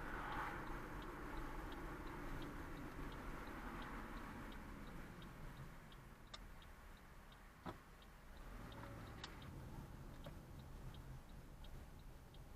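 A car's turn signal ticking steadily, about two ticks a second, over low engine and road noise inside the car. The road noise fades a few seconds in, and a few single sharp knocks come through, the loudest just past the middle.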